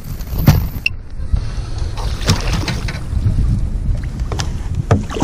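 Wind rumbling on the microphone, with several sharp knocks and splashes as a hooked largemouth bass thrashes at the surface.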